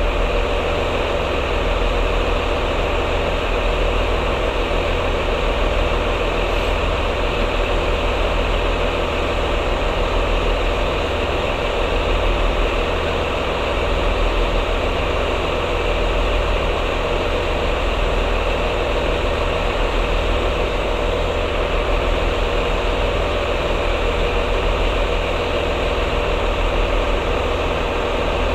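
Diesel train engine idling steadily, a loud, even low rumble with a hum over it.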